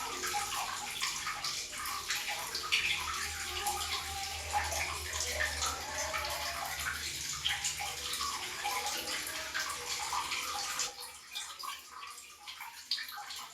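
Water running from a tap in a public toilet and splashing in a steady stream. About eleven seconds in, the flow and its low hum drop away, leaving quieter scattered splashes and drips.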